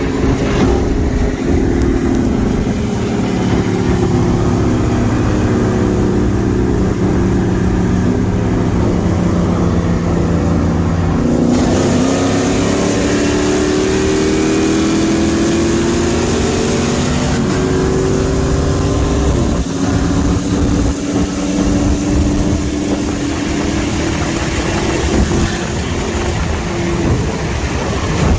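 Pickup truck engine running under way. Its pitch climbs and falls several times as it speeds up and shifts, and road and wind noise grow louder about a third of the way in.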